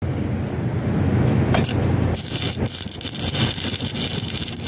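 Electric arc welding: the arc crackles and hisses steadily from about two seconds in, over a low rumble.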